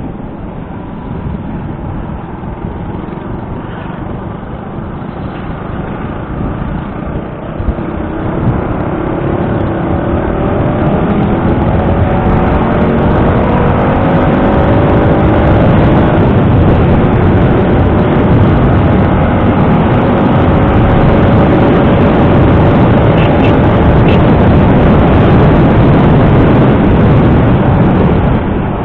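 Motor scooter engine running while riding, its pitch rising as it accelerates from about eight seconds in, with wind rushing over the microphone that grows louder as speed builds.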